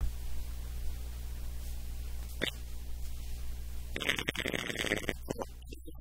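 Steady low electrical hum, with a brief sharp noise about two and a half seconds in and a louder noise lasting about a second from four seconds in, as tableware is handled.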